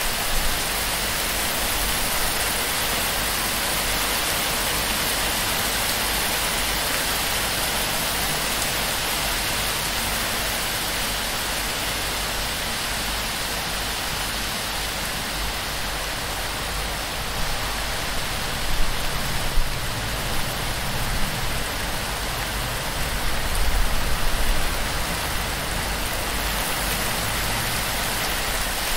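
Heavy torrential rain pouring onto a palm-thatch roof and streaming off the edge of the fronds: a dense, steady hiss. A few brief low thumps and a short rumble come through about two-thirds of the way in.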